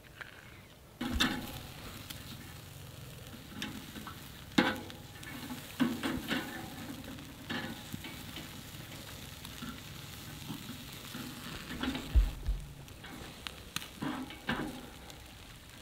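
Carne asada sizzling over an open campfire flame, a steady hiss that comes up about a second in, with scattered clicks and knocks and a low thump about twelve seconds in.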